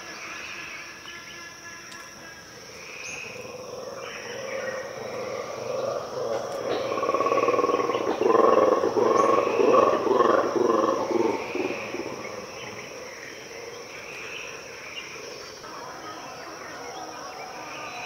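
Mantled guereza (black-and-white colobus) monkeys giving their territorial roaring call: a pulsing chorus of roars and growls that swells from about four seconds in, is loudest around the middle, then fades away.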